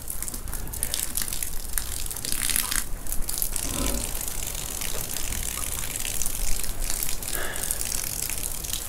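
Water sputtering and hissing out of a partly frozen garden hose, irregular and crackly as it spits ice and slush through the blockage.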